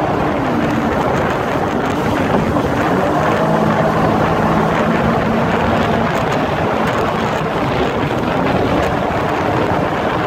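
Jet ski engine running under way, its note shifting in the first second and then holding steady, over a constant rush of wind and water.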